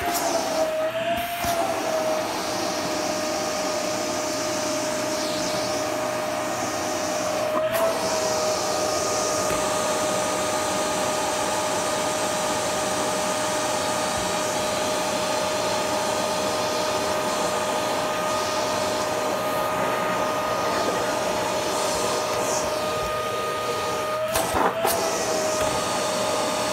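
Vacuum cleaner running with a steady whine over the hiss of suction through its hose. The whine wavers briefly near the start and again about eight and twenty-four seconds in, where a few light knocks are also heard.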